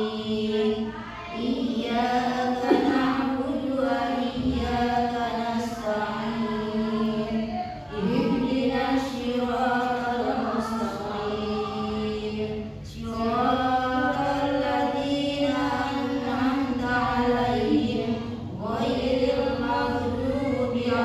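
A group of women reciting the Qur'an aloud in a melodic chant, with long held notes and brief pauses for breath every few seconds.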